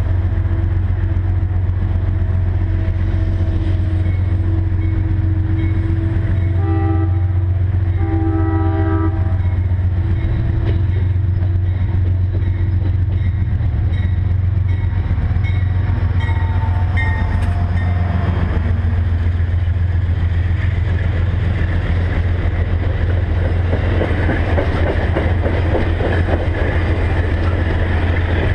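Amtrak P42DC diesel locomotive's multi-chime air horn sounding a salute in a series of blasts as the train approaches, the longest about eight to nine seconds in. From about two-thirds of the way in, the passenger cars roll past close by with rising wheel and rail noise, over a steady low rumble.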